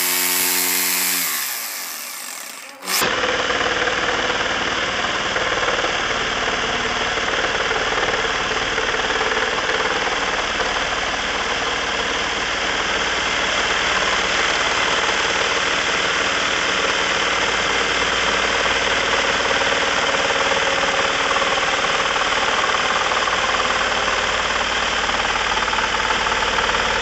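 Metabo STE 70 electric jigsaw. Its motor whine fades away over the first couple of seconds. From about three seconds in, the jigsaw saws steadily through a wooden board, a loud, even buzz of the reciprocating blade.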